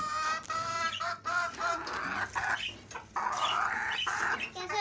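Several chickens clucking and squawking: a run of short pitched clucks, a harsher, noisier stretch of squawking in the middle, then clucking again near the end. The birds are hungry and crowding for food.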